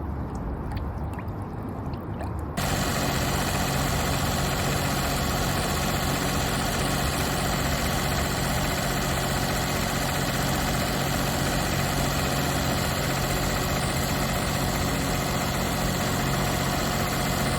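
Car engine idling steadily. About two and a half seconds in it suddenly becomes louder and fuller, then holds an even, steady hum.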